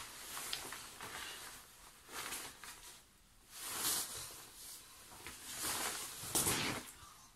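Padded winter jacket rustling in irregular swishes as it is handled and pulled on, loudest about four seconds in and again near the end.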